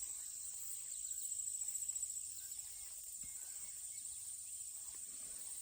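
Chorus of insects in late-summer vegetation: a steady, high-pitched trilling drone with a fine even pulse, swelling a little about a second in.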